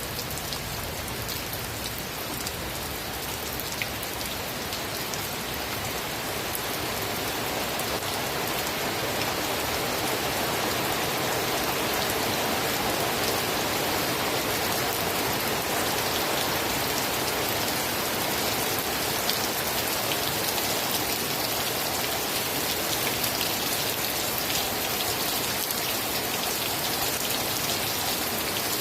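Steady rain falling, a dense even hiss with fine drop ticks scattered through it, swelling over the first ten seconds or so and then holding steady.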